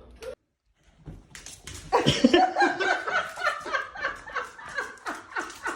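Human laughter: after about a second of silence, hearty laughing starts about two seconds in and carries on as a quick run of short, repeated ha-ha's.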